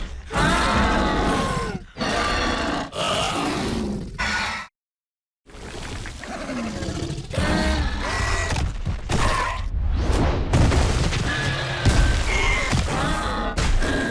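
Scorpios Rex creature sound effects: a string of separate grunts, squeals and roars with pitch glides, a sound design built from an Indominus Rex scream, pig sounds and alligator bellows. A brief gap of complete silence breaks the run about five seconds in.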